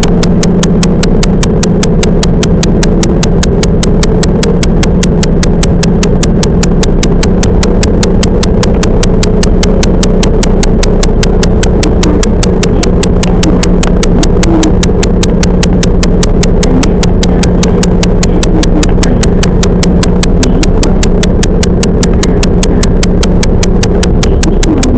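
Steady running noise of a train heard from inside the passenger car, with a constant low hum and an even, rapid ticking at about three to four clicks a second.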